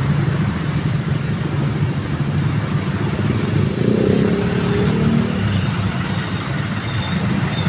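A bus engine running close by, its note swelling and rising about four seconds in as it accelerates past.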